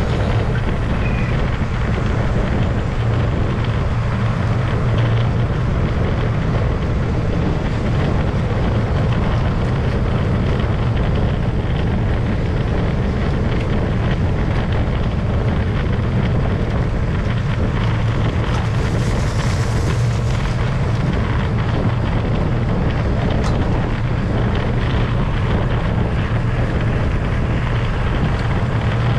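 Wind rushing over the microphone of a camera riding along on a road bike in a group ride, a steady low rumble with a brief rise in hiss about two-thirds of the way through.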